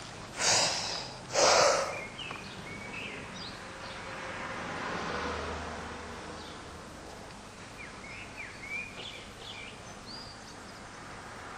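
A person takes two sharp, loud breaths about a second apart, drawing in air before holding it, then stays silent over a steady background hiss with scattered faint short chirps.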